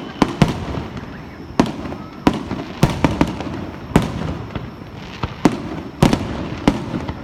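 Fireworks shells bursting in an irregular barrage: about ten sharp bangs in seven seconds, with a low rumble between them.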